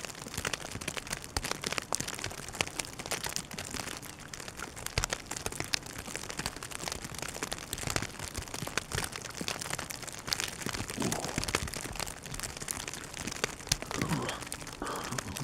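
Dense, continuous crackling and pattering, with a few faint low sounds near the middle and end.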